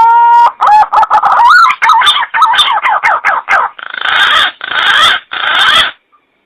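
Green pigeon (punai) calling: a long rising whistle, then a quick run of wavering whistled notes, ending in three harsh, raspy notes.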